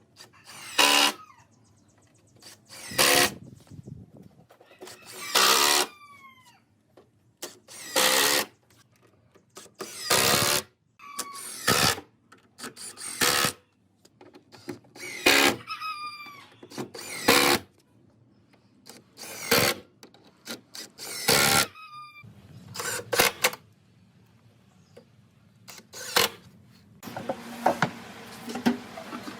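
A power drill run in short bursts, roughly every two seconds, some ending with a falling whine as the motor spins down. Near the end the tool runs more steadily.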